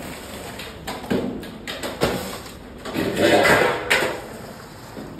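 Metal cooking utensils knocking and clattering a few times, with a louder stretch of scraping or clattering for about a second near the end.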